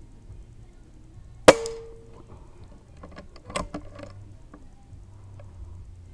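A PCP air rifle firing: one sharp crack with a brief ringing tone after it. About two seconds later comes a quick run of metallic clicks and knocks as the action is worked for the next shot.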